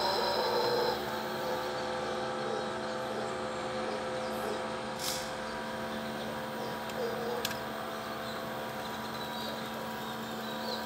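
A mantled howler monkey's roar, which ends about a second in, followed by a steady motor hum with a few faint bird chirps.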